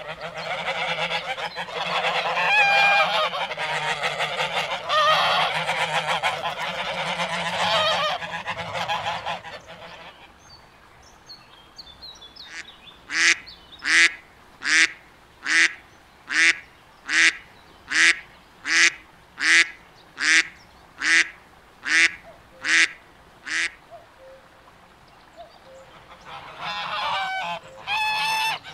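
A flock of waterfowl calling together in a dense chorus. After a lull, a single bird gives a steady series of about fourteen short, loud calls, a little over one a second, before the flock chorus starts again near the end.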